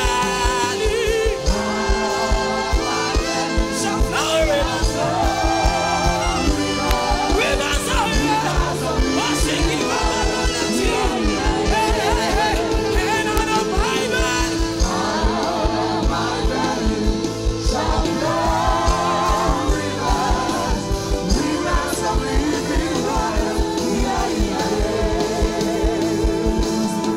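Live gospel worship music: female singers with vibrato over a band playing a steady beat.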